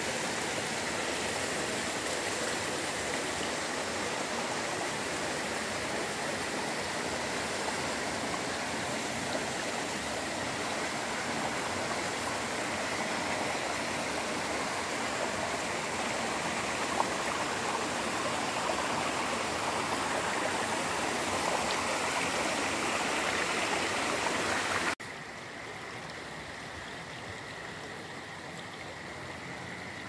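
Waterfall pouring into a plunge pool: a steady, even rush of falling water. About 25 seconds in it cuts suddenly to a quieter rush of a shallow stream.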